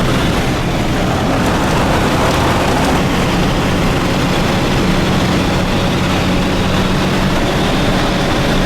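A vehicle driving: steady engine and road noise, with a low engine hum that grows stronger about halfway through.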